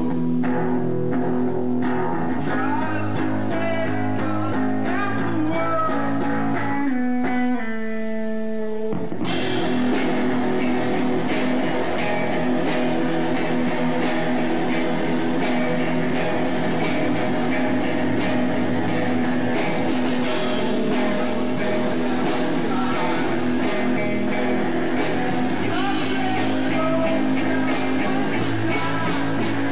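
Live rock band on electric guitars: the guitars play alone for about the first nine seconds, then the drum kit and the full band come in together and play on at full tilt.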